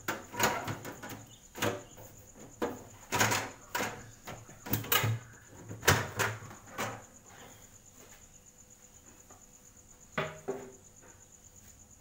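Sharp plastic clicks and knocks from hands working at the plastic housing at the top of a refrigerator's fridge compartment. About a dozen come in quick irregular succession over the first seven seconds, then one more a little after ten seconds.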